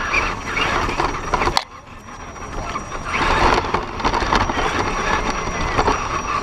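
A 1/10-scale Axial SCX10 RC rock crawler driving over dry grass and dirt: its electric motor and gears whir, and its tyres crunch through the grass. The sound drops away sharply about a second and a half in, then builds back up.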